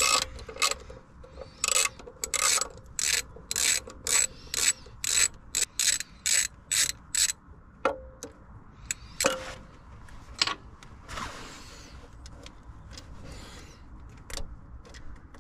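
Socket ratchet wrench clicking through a run of quick back-and-forth strokes, about two a second, while undoing a small bolt on the lower timing belt cover. After about seven seconds the strokes stop, leaving a few single clicks and a brief rub.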